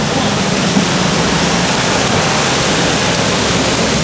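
Hummer H1 engine running under load as the truck ploughs through a deep mud hole, with churned mud and water splashing. A loud, even rushing noise is heard, and the engine's low hum fades under it about two seconds in.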